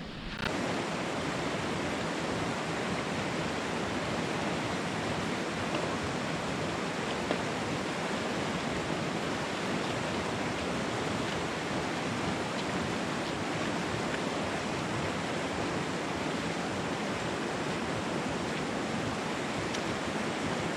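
Small, muddy creek running high over rocks in a whitewater riffle: a steady, even rush of water.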